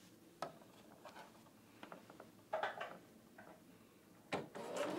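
Faint scattered clicks and taps of fabric and hands against an electric sewing machine, then near the end the machine starts stitching, its motor rising in pitch as it speeds up.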